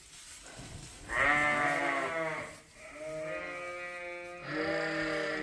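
Sheep bleating: three long, wavering bleats one after another. The first, about a second in, is the loudest.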